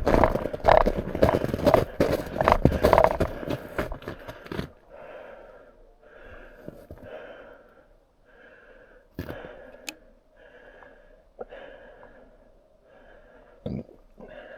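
Footsteps crunching quickly through snow, stopping about four and a half seconds in. Then fast, heavy breathing close to the microphone.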